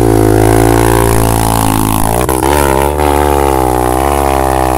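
Enduro dirt bike engine revving hard close by, held at high revs with the pitch wavering, and a brief drop about two seconds in, as the bike strains under load on a difficult climb.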